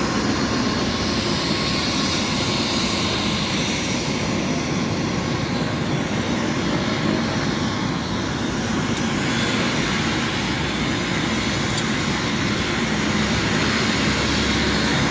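Helicopter turbine engine and rotor running with a loud, steady noise.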